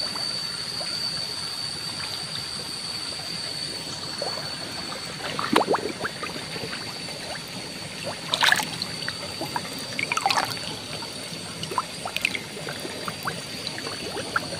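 Water trickling in a shallow, nearly drained fish pond, broken by a few short splashes in the muddy water. A steady thin high tone runs over it.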